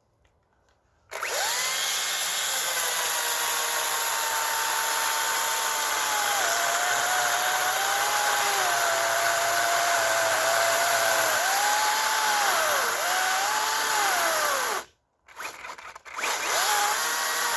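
Makita DUC355 dual-battery electric chainsaw starting about a second in and cutting through a log, its motor whine dipping and recovering in pitch as the chain bites into the wood. It stops suddenly near the end, gives a short burst, then runs again.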